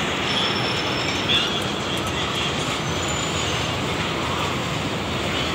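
Fairground dragon train ride running along its steel track: a steady rolling din, with a brief louder knock about a second and a half in.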